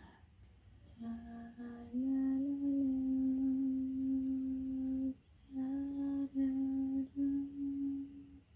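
A person humming a slow, lullaby-like tune in long held notes. The humming starts about a second in and steps up in pitch around two seconds in, with a short break about halfway and brief pauses near the end.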